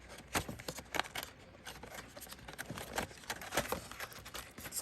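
Packaging being handled while the doorbell is unboxed: a run of irregular small clicks, taps and rustles.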